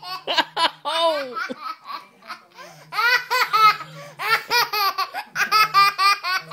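Toddler girl laughing hard: high-pitched belly laughs in rapid runs of short pulses, with a lull of about a second near two seconds in before the laughter picks up again.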